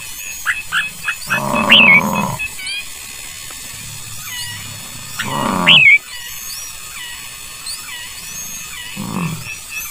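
Birds chirping, many short high chirps throughout, with two loud calls of about a second each from a larger animal, about one and a half and five seconds in, and a fainter one near the end.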